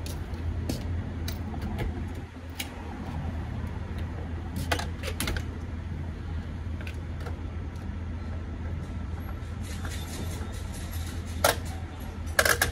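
Steady low hum at a fuel pump, with scattered light clicks and a few sharper clicks and knocks near the end.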